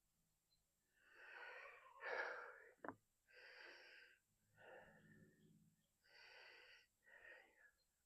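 Faint breathing close to the microphone, a short breath about once a second, with a single small click about three seconds in.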